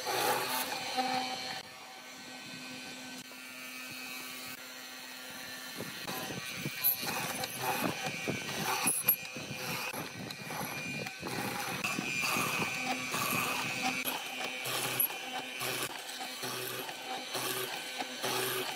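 Benchtop hollow-chisel mortiser running, its square chisel plunging again and again into a wooden beam to cut a mortise, with a few sharp knocks.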